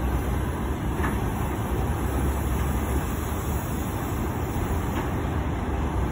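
Flatcars of a freight work train loaded with rails rolling past on the track: a steady low rumble of wheels on rail.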